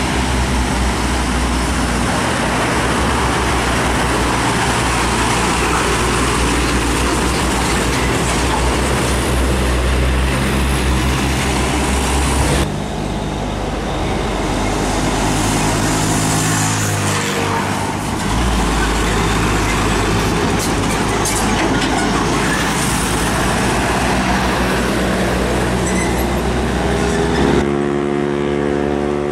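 Heavy diesel trucks and other traffic on a busy highway: deep engine hum with loud tyre and road noise, and an engine note falling in pitch as a vehicle goes by about halfway through. The sound changes abruptly twice, where the footage cuts.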